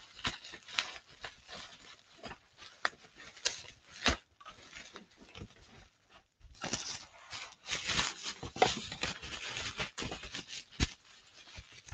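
Bubble wrap being handled and unwrapped, crinkling and crackling. There are scattered sharp crackles at first, then a denser stretch of rustling from about halfway through that eases near the end.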